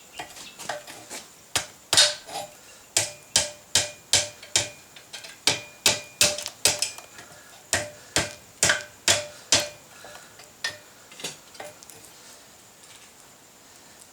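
Blacksmith's hammer striking hot mild steel on an anvil, a steady run of about two blows a second, each with a brief metallic ring. The blows thin out to a few lighter taps near the end.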